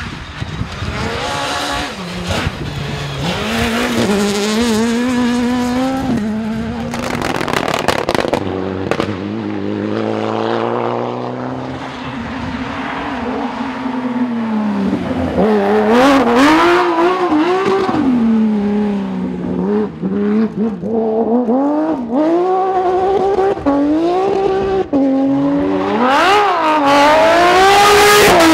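Rally car engines revving hard at full throttle. The pitch climbs and drops again and again through gear changes, lifts and accelerations, with the loudest, fastest swings in the second half.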